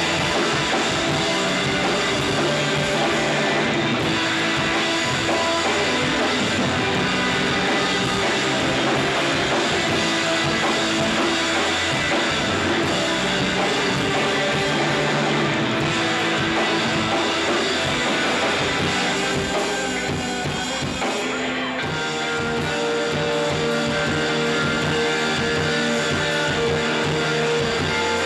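Shoegaze rock band playing live: electric guitars over a drum kit in a dense, steady wall of sound. About twenty seconds in it thins briefly, and a new set of held chords comes in.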